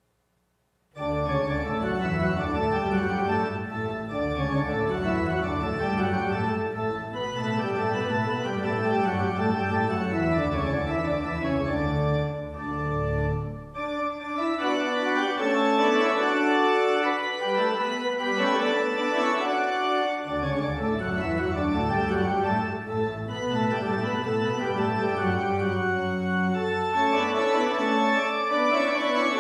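Church organ playing the closing postlude, sustained chords over a deep bass line, starting about a second in after a moment of silence. The bass drops out for several seconds midway, then returns.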